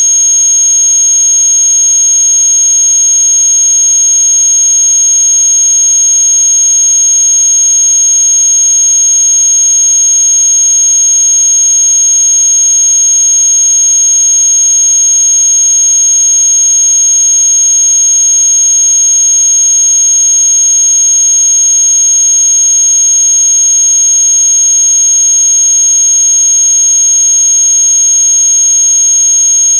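Loud, steady electronic tone that never changes: a shrill high whine over a lower hum.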